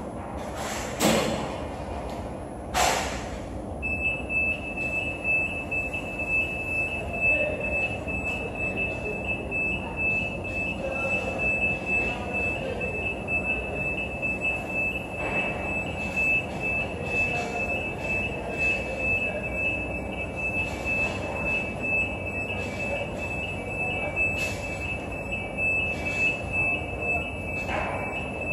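STILL FM-X14 electric reach truck running as its mast raises, with a high, steady electronic warning tone that comes on about four seconds in. Two sharp knocks come in the first three seconds.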